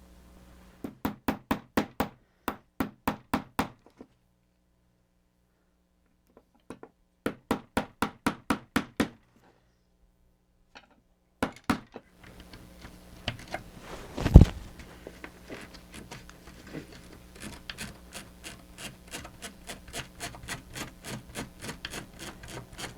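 Runs of sharp, evenly spaced clicks, about four or five a second, as a small plastic gearbox mechanism is worked by hand, with one loud knock partway through.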